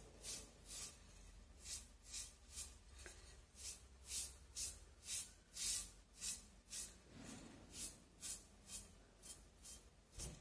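Brush strokes applying bitumen stain to a ceramic vase: short, faint scratchy strokes, about two a second.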